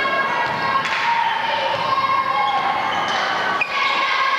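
Basketball bouncing on a gym's wooden floor during play, with a few sharp thuds in a reverberant hall. A steady pitched hum runs underneath.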